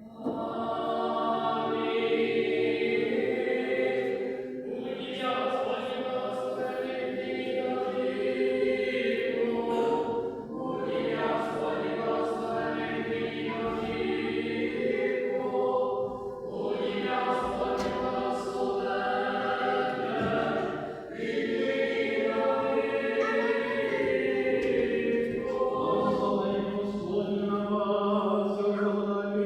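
A church choir singing a cappella liturgical chant in long sustained phrases, with brief breaths between phrases.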